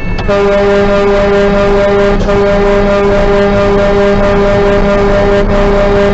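Truck horn held in one long, steady blast, a deep tone with many overtones, after a brief higher-pitched start. It is the warning of a runaway truck whose brakes have failed.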